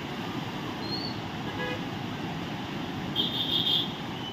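Steady outdoor background noise, with a vehicle horn honking briefly, high-pitched, a little after three seconds in.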